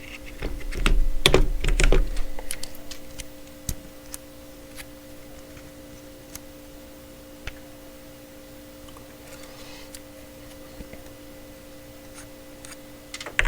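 Small metal tool parts clicking and rattling as they are handled, most likely driver bits being fitted into a quick-change impact adapter. The clicks come thickly in the first two seconds, then only now and then over a steady low hum.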